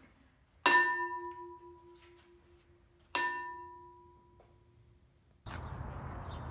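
A bell-like object struck twice, about two and a half seconds apart, each strike ringing out with a clear tone that fades over about two seconds. Near the end a steady rushing noise with a low rumble starts suddenly.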